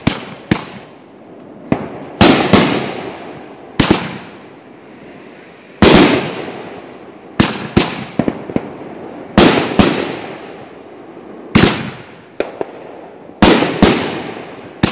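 Fireworks going off in a display: sharp bangs, often in twos or threes, every second or two, each followed by a fading echo.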